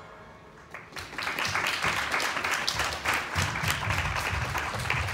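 Audience applause: clapping breaks out about a second in, just as the music fades away, and carries on steadily.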